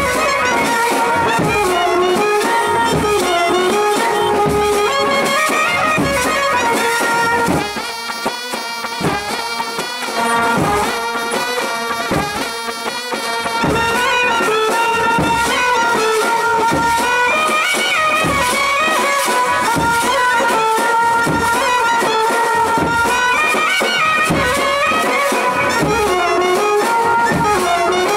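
Indian wedding-style brass band playing live: a clarinet carries the melody over trumpets and a baritone horn, with a steady beat underneath. The beat drops out for a few seconds about a third of the way through, then comes back.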